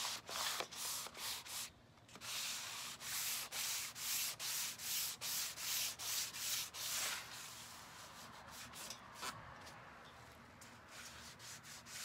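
Sanding block rubbed back and forth over the painted metal side of a mini fridge, buffing hemp oil into the paint: quick rasping strokes about two to three a second, with a short pause near two seconds. After about seven seconds the strokes turn fainter and sparser.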